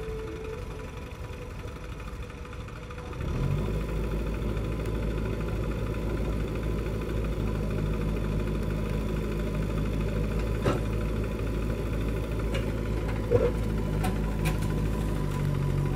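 Music fading out during the first three seconds, then diesel engines running steadily: a JCB 3DX backhoe loader working its front loader bucket beside a tractor. A couple of brief knocks come near the end.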